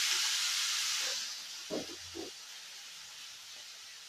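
Tomatoes and green chillies sizzling in hot oil in a pan, a loud hiss that dies away about a second in. Two faint knocks follow.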